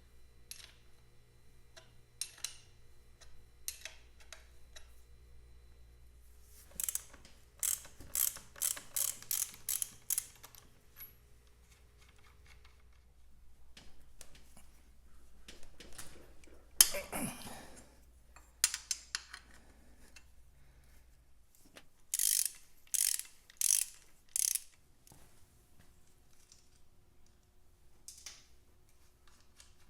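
Socket ratchet wrench clicking in short runs of quick strokes as nuts on the motorcycle's rear footpeg plates are undone, with a single sharp metal knock about halfway through.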